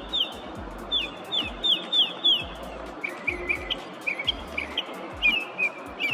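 Northern mockingbird singing. It repeats a short, high, downward-slurred note several times in quick succession, then about halfway through switches to a different phrase of lower, choppier notes, cycling through its repertoire of calls.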